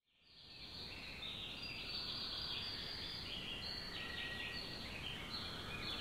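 Natural forest ambience fading in over the first second: many birds chirping at once, a dense, continuous high chorus over a steady low background noise.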